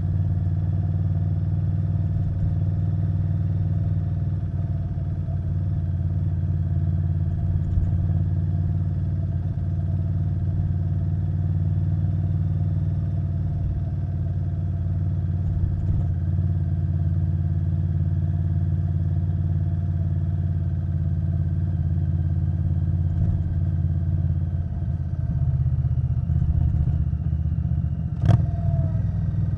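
A 2021 Indian Scout Bobber Twenty's liquid-cooled V-twin, breathing through a Vance & Hines Twin Slash exhaust, running steadily under way with a deep, even exhaust note. A single sharp click sounds about a second before the end.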